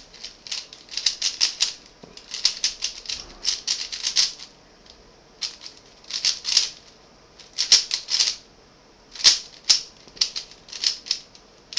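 Rubik's cube being turned fast by hand during a speedsolve: quick runs of plastic clicks and rattles, in bursts of several turns with short pauses between.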